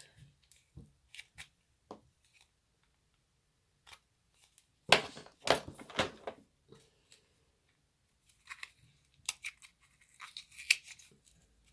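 A small cosmetic product's packaging being worked open by hand: scattered crinkles and clicks, with a loud burst of rough tearing noise about five seconds in lasting over a second, then more crinkling near the end.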